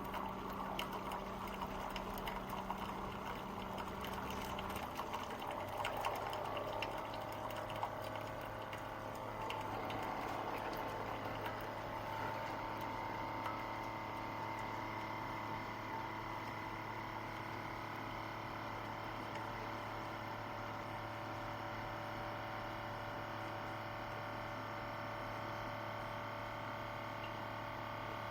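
Coffee maker running while it brews: a steady mechanical hum, with crackling and clicks over the first several seconds. The hum drops lower about five seconds in.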